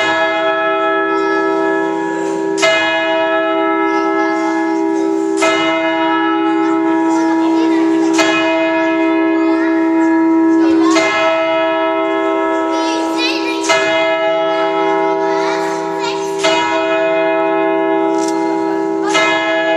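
Church tower bells ringing, with a fresh strike about every two and a half to three seconds and each stroke ringing on under the next in a continuous peal.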